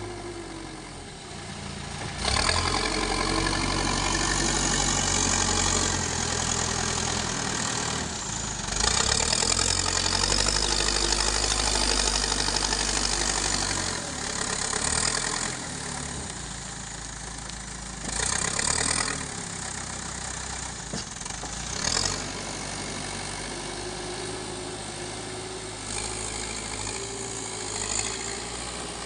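Backhoe loader's diesel engine working, going up in revs under load for several seconds at a time and dropping back toward idle, with shorter bursts of revving in the second half.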